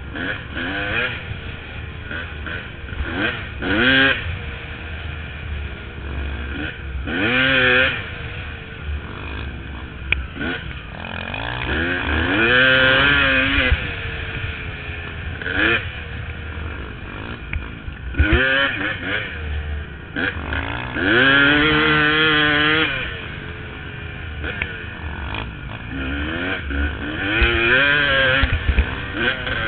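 2002 Honda CR250's two-stroke single-cylinder engine, fitted with an aftermarket expansion pipe and silencer, ridden hard. It revs up in a series of rising pulls, about eight of them, each dropping back off the throttle, with a low rumble underneath.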